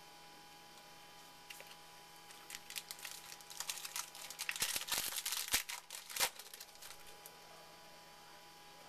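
Trading cards and their packaging being handled: a run of crinkling, rustling and small clicks that starts about a second and a half in, is busiest a little past the middle, and dies away near the end, over a faint steady electrical hum.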